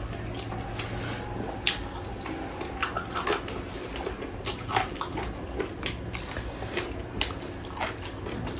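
Eating sounds of people working through a whole roast chicken: scattered small clicks and handling noises as the meat is torn and chewed, over a low steady hum.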